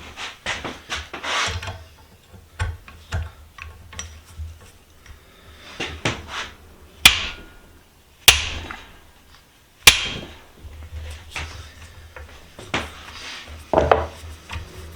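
Hammer blows on a metal bench vise being taken apart, with three sharp ringing strikes about seven, eight and ten seconds in among lighter clinks and rattles of metal parts. The vise is being knocked to free a stuck screw that the jaw plate was holding.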